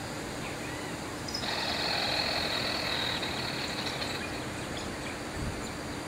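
A rapid, pulsing animal trill, starting abruptly about a second and a half in and lasting about three seconds, over steady outdoor background noise.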